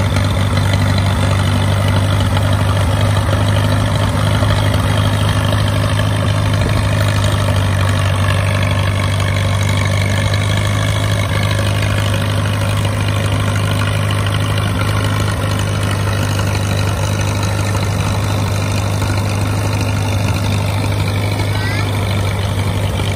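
Antique Case tractor engine running steadily under load as it pulls and drives a one-row corn picker picking ear corn, with the picker's machinery clattering along. The sound eases slightly near the end as the rig passes by.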